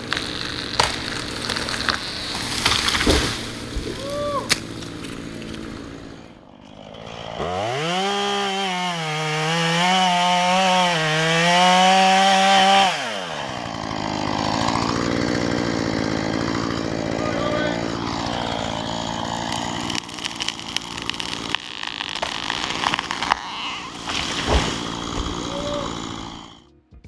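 Chainsaw running, revved to full throttle for about five seconds in the middle with its pitch wavering, then dropping back. Scattered knocks and clicks come before and after.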